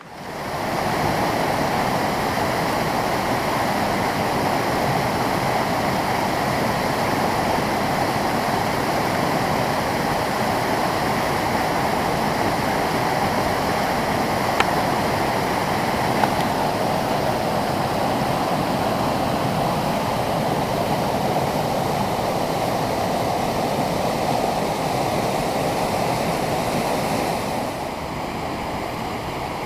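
Waterfall cascade, water rushing steadily. It swells in over the first second and drops a little near the end, with a couple of faint clicks midway.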